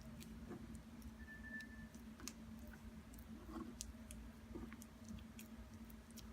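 Faint, scattered sticky clicks of butter slime being handled, over a steady low hum.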